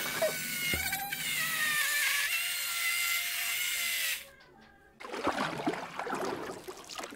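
Xiaomi Mijia Pinlo portable blender's 70-watt motor running as it blends chunks of red onion and red pepper in water: a steady whine whose pitch creeps slowly upward, cutting off about four seconds in. After a brief silence, music starts.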